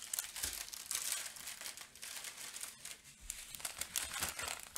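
Small plastic bags of diamond painting drills being handled and crinkled, with many short crackles of the plastic.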